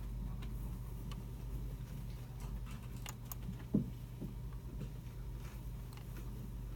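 Computer room ambience: a steady low hum under sparse, scattered clicks of keyboards and mice, with one louder dull thump about halfway through.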